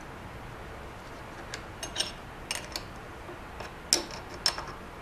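Light metallic clicks and clinks as nuts and washers are spun down by hand on the studs of a milling fixture and a wrench is handled against them, scattered at first, with the sharpest two clinks close together near the end.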